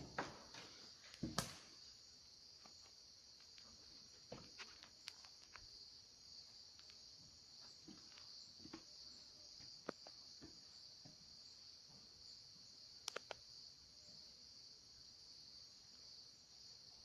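Steady high-pitched chirring of an insect chorus, with scattered faint rustles and sharp clicks: a loud click about a second in and a quick cluster of clicks about thirteen seconds in.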